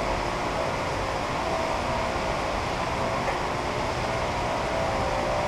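Steady background noise with a faint, even hum running through it.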